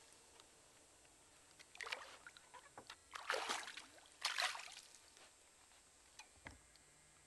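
Hooked largemouth bass splashing and thrashing at the water's surface beside a boat, three splashes about a second apart, then a single low thump near the end.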